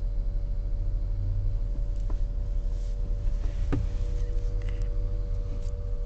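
Steady low road and engine rumble heard inside a moving car's cabin, with a faint steady hum above it and one or two light clicks.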